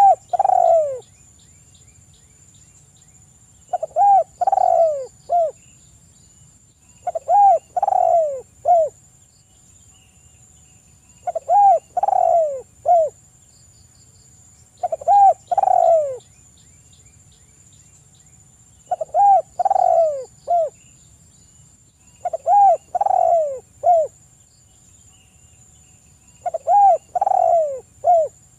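Spotted dove cooing: a phrase of three or four notes, each rising and falling in pitch, repeated about every four seconds, eight times in all. A faint steady high-pitched whine runs underneath.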